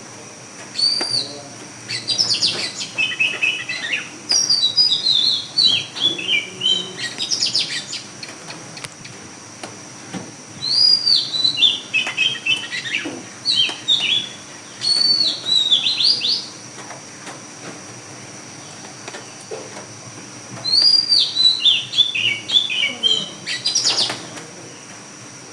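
Birdsong: repeated phrases of quick, high chirps that step down in pitch, coming in bursts a few seconds apart.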